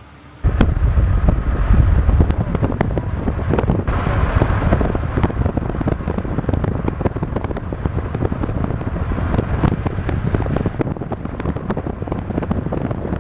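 A heavy downpour of rain and hail, dense with sharp ticks of stones and drops striking, with wind buffeting the microphone. It starts suddenly about half a second in.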